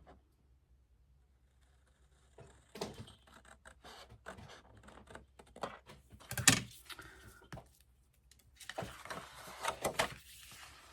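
Sheet of scrapbook paper being handled: rustling and scraping with scattered clicks and light knocks, one louder knock past the middle, and a stretch of steady rustling near the end.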